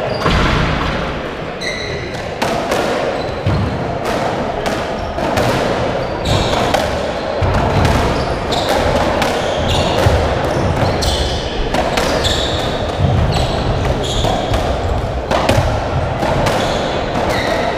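Racketball rally on a squash court: a hollow rubber ball repeatedly struck by strung rackets and hitting the walls and floor, with the players' court shoes squeaking on the wooden floor.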